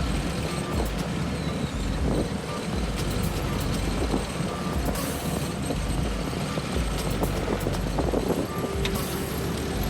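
Diesel engines of asphalt paving machinery running steadily, with faint short beeps of a reversing alarm scattered through.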